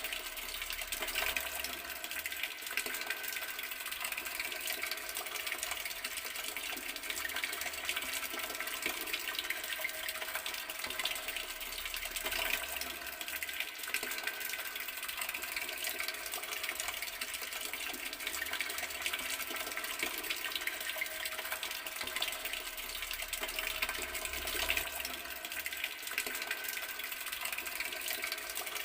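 Garden water tap running, a steady flow of water with no breaks.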